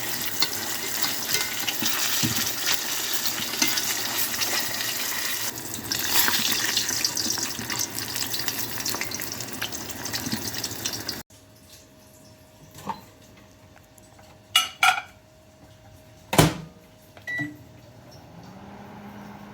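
Frozen karaage deep-frying, the oil sizzling and crackling loudly. About eleven seconds in it cuts off abruptly, leaving a quiet hum with a few sharp clinks and knocks of kitchen utensils.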